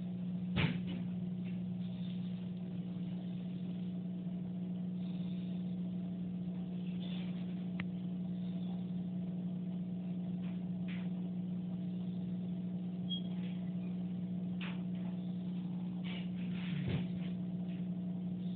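Steady low electrical hum with a fixed pitch, plus a tap about half a second in and a few faint scattered clicks.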